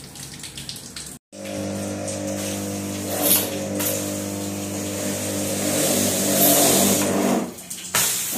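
An electric pressure washer's motor and pump run steadily with the hiss of its spray, starting after a brief gap about a second in and dipping briefly near the end.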